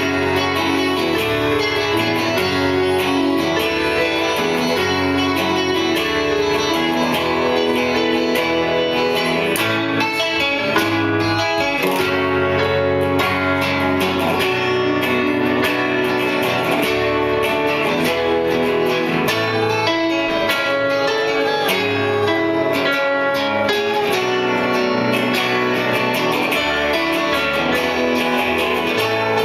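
Live band playing an instrumental passage, led by guitars, with drums keeping a steady beat.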